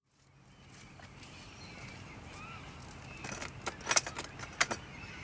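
A quick run of sharp metallic clicks and rattles, about three seconds in, from metal parts being handled, over a faint steady background hiss.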